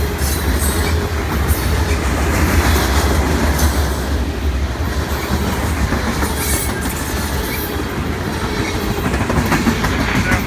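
Freight cars rolling past at close range: a steady, loud rumble of steel wheels on rail with a clickety-clack over the rail joints. Now and then a brief high squeal from the wheels, and a run of quicker clicks near the end.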